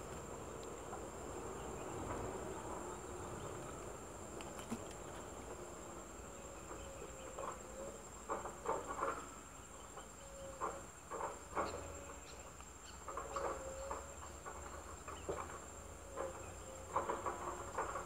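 A steady high insect drone, and from about seven seconds in repeated clusters of short sounds at the nest as an adult bird comes in to feed its two hungry nestlings.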